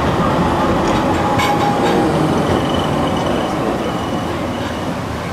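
Alstom Citadis low-floor tram passing close by on street rails: a steady rumble of wheels and running gear that eases off near the end. A faint high wheel squeal comes in about halfway through.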